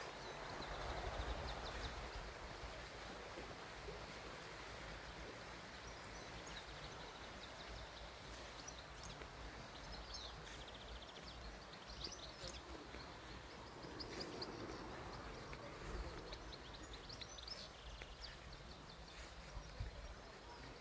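Faint outdoor ambience: scattered short, high bird chirps, thickest in the middle stretch, over a low rumble.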